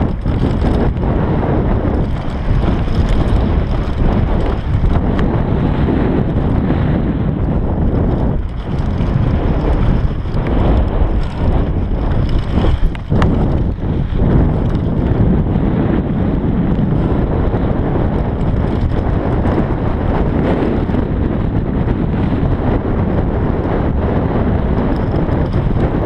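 Wind buffeting the GoPro Hero 3 microphone on a fast downhill mountain-bike descent, mixed with the Bergamont BigAir 6.1's tyres rumbling over dirt and loose gravel. Sharper knocks and clatter from the bike crop up around the middle.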